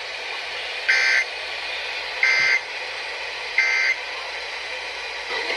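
Emergency Alert System end-of-message signal coming through a radio receiver: three short buzzing data bursts of two rapidly alternating tones, a little over a second apart, over steady radio hiss. It marks the end of the required monthly test.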